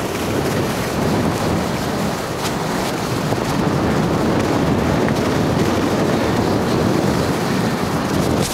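Steady rushing wind noise on the camera's microphone from skiing downhill at speed, mixed with skis sliding over packed, groomed snow.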